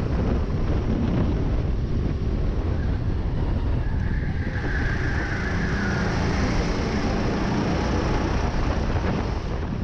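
Racing kart engine running under throttle, heard from on board, with wind buffeting the microphone. A higher whine rises and fades about five seconds in.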